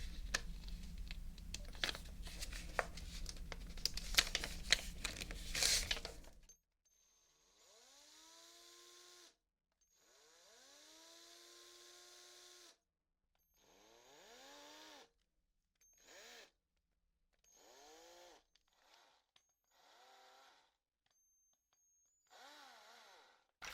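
Dense crackling and clicking over a low hum for about six seconds. Then an electric drill is run in about eight short trigger bursts, its motor whining up in pitch and holding. In the last few bursts the speed wavers.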